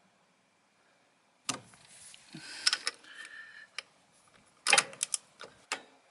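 Torque wrench and socket on a new scooter oil filter: a series of sharp metallic clicks and knocks with handling noise between them, bunched about a second and a half in and again, loudest, near five seconds in, as the filter is torqued to 14 newton metres.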